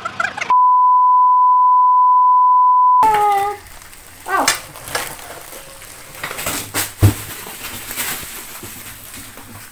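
A steady electronic beep tone, loud and unbroken, lasting about two and a half seconds with all other sound cut out under it. After it comes the rustle and crinkle of plastic packaging wrap being handled and cut, with a sharp click about seven seconds in.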